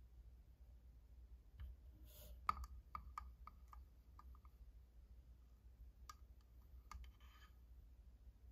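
Green plastic straw clicking against the sides of a clear plastic Starbucks tumbler as a milky drink is stirred: a run of quick, faint clicks with a light ring, then two more single clicks later.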